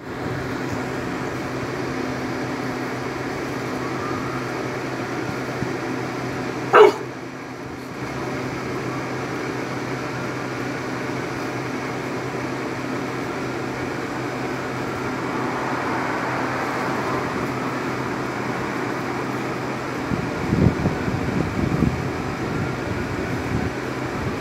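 A dog gives one short, sharp bark about seven seconds in, over a steady mechanical hum.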